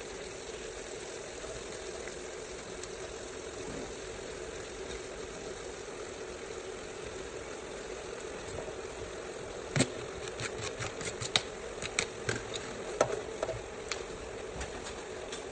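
A steady low hum under the cooking. From about ten seconds in, a run of sharp clicks and knocks from a ladle striking the side of the cooking pot as the food is stirred and turned.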